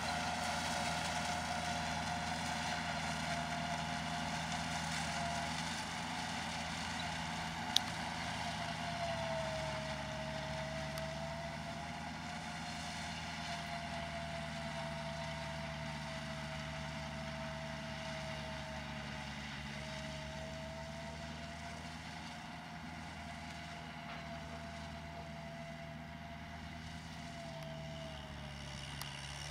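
Kubota L5018 tractor's diesel engine running steadily under load while driving a rear rotary tiller through the soil, with a steady higher whine over the engine drone.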